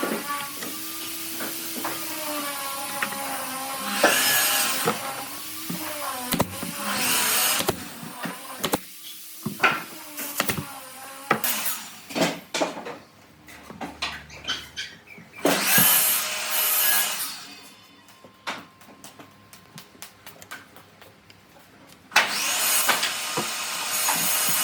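Workshop woodworking sounds: a power tool running in several short bursts, with scattered knocks and taps on wood between them, over background music.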